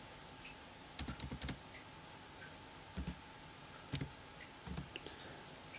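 Computer keyboard keys tapped in short bursts while a number is entered: a quick run of several keystrokes about a second in, then single taps around three and four seconds in and a few more shortly after.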